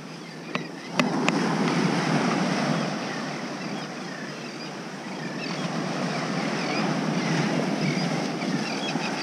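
Ocean surf breaking and washing up the beach, a steady rush that swells and fades. A few sharp clicks come about a second in.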